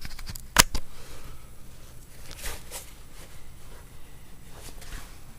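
Handling noise from small hard objects: a sharp double click about half a second in, then a few fainter rustles and scrapes.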